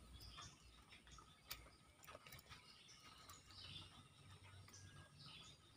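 Near silence: faint outdoor ambience with a few distant bird chirps and a few faint clicks, one about a second and a half in.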